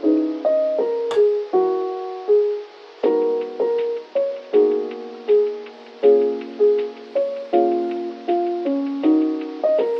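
Background music: a keyboard with a piano sound plays a slow melody over chords, each note struck and fading, about two notes a second.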